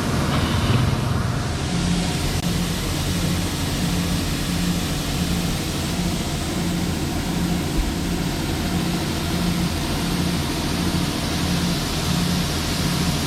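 Heavy diesel farm machinery running steadily, with a low pulse repeating a little more than once a second over a constant hiss.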